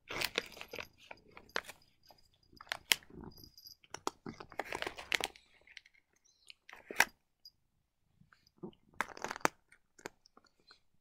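Cat crunching dry, crispy treats, in short irregular bouts of chewing separated by pauses.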